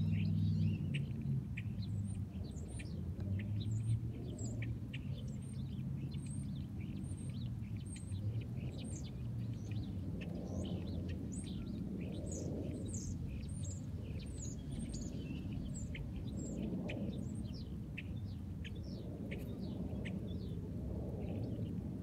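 A flock of small birds chirping in a tree: many short, high chirps overlapping without pause, over a steady low rumble.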